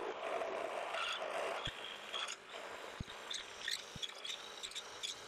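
A twist drill of about 37/64 inch cutting into an aluminium block on a mill-drill, enlarging a pilot hole to tap-drill size for a 3/8 NPT thread. It makes a scraping cutting noise as chips spray off the bit, heaviest in the first couple of seconds, then lighter and scratchier.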